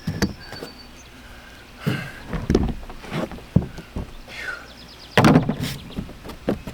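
Irregular knocks, clunks and a brief creak from work on an RV roof around the rooftop air conditioner's shroud, with a heavier cluster of thumps near the end.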